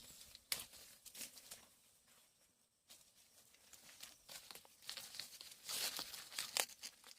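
Dry corn plants rustling and crackling in irregular bursts, busier and louder in the second half.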